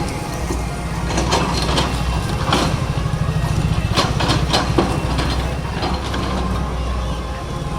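Demolition machinery breaking up a concrete bridge: an engine running steadily under irregular sharp cracks and knocks of concrete being broken.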